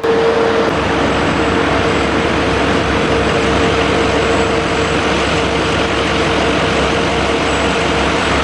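Heavy haulage truck's diesel engine running steadily, with a constant mid-pitched whine over the engine noise. It starts abruptly on a cut.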